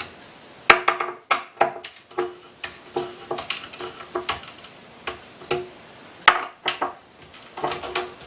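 Wood screws being turned in by hand with a screwdriver through a cabinet door into a wooden pull: a run of irregular clicks, each with a brief ring.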